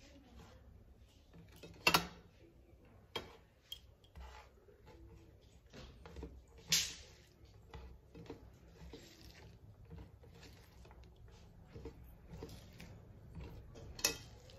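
Fingers mixing rice with curry on a steel plate: soft squishing with many small clicks of fingers and jewellery against the metal. There are three louder sharp sounds: at about 2 seconds, near 7 seconds and near the end.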